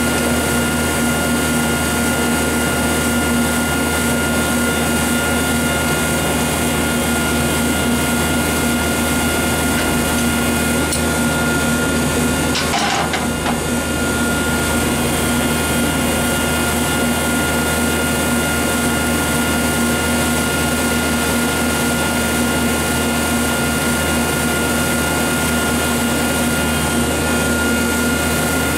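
Steady machine drone: a constant hum and whine over an even rushing noise that does not change. A single brief click comes about halfway through.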